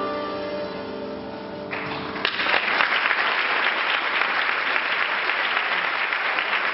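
The song's last held chord fades out, and about two seconds in the audience starts applauding, a steady applause that keeps going.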